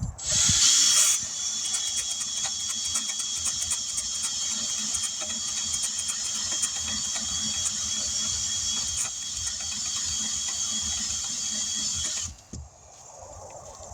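Power tool with a wire wheel spinning against the tire's inner liner, buffing the rubber around the puncture to prepare it for a patch. A steady high whine with dense scratching that is loudest for about the first second, then holds even until it stops sharply near the end.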